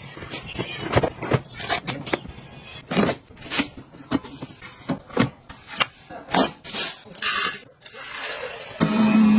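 A quick run of handling sounds: taps, clicks and scrapes of household items being unboxed and set in place, among them a knife sliding into a plastic knife block. A short hiss comes about seven seconds in, and a steady low hum starts near the end.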